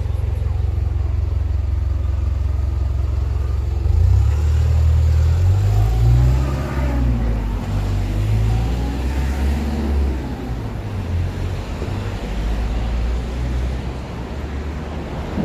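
City street traffic: a steady low rumble, with a motor vehicle passing close about four seconds in, its engine note rising and falling before it fades after about ten seconds.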